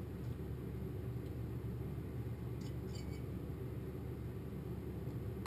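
Steady low hum of room tone in a small wooden workshop, with a few faint light clicks about two and a half to three seconds in.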